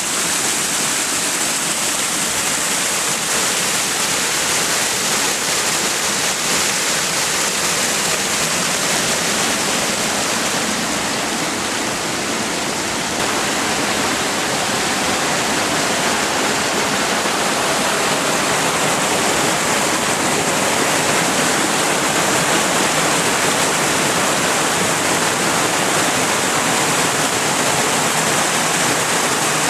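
Floodwater rushing past in a swollen creek, a loud, steady rush of water.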